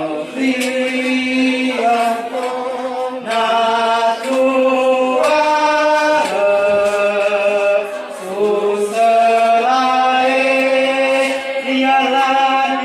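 A man chanting a ceremonial chant into a microphone. He holds long notes and steps up and down in pitch from phrase to phrase.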